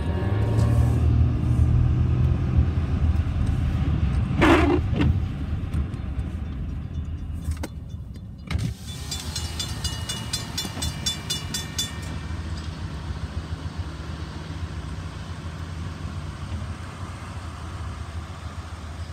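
Car cabin rumble in rain, with one short loud sound about four and a half seconds in. From about nine seconds a railroad crossing bell rings rapidly for about three seconds, then only the low steady rumble of the car remains.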